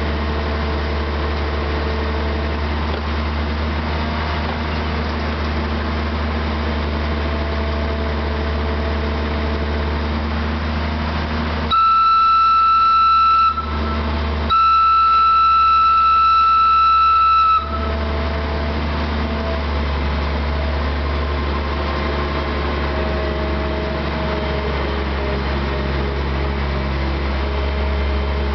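Narrow-gauge diesel locomotive running with a steady low engine drone. Near the middle it sounds its horn twice on one high steady note: a short blast, then a longer one of about three seconds.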